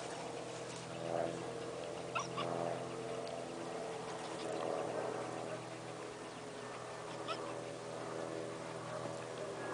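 A dog whining in drawn-out, pitched cries, about three times.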